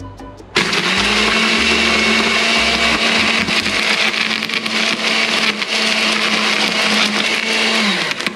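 Countertop blender switched on about half a second in, its motor spinning up and running at a steady pitch as it crushes a full load of ice with the liquid into slush; the motor winds down and stops just before the end.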